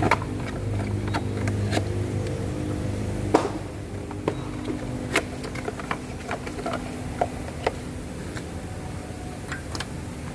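Honda CR-V engine idling with a steady low hum, cut off with a sharp click about three seconds in; scattered clicks and light knocks of parts being handled follow.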